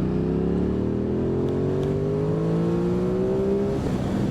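Aprilia Tuono 660's parallel-twin engine accelerating under load, its note climbing steadily for nearly four seconds, then dropping away suddenly near the end, leaving wind rush.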